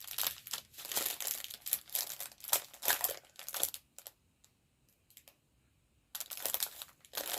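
Plastic packaging crinkling and rustling as small bags of diamond painting drills are handled. The crinkling stops for about two seconds midway, with only a few light clicks, then starts again.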